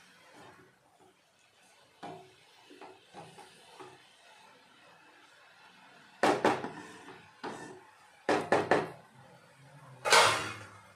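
Kitchen utensils knocking and clattering against a large aluminium cooking pan in four short clusters from about six seconds in, the last the loudest; before that only faint light ticks.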